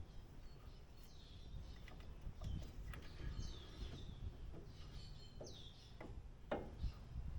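Birds chirping in short downward-sweeping calls, with scattered light clicks and knocks and a low background rumble.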